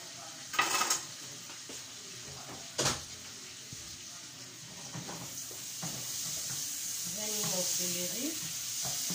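Two sharp clanks of a knife or utensil against a steel saucepan, then a steady sizzle from the pot that grows louder in the second half.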